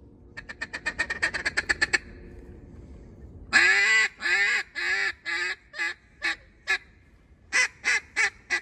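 Mallard duck call blown by a hunter. First comes a fast feeding chuckle of about ten short notes a second, lasting about a second and a half. Then comes a loud hail call of seven quacks, the first the longest and loudest and each after it shorter. Near the end there is a quick run of four more quacks.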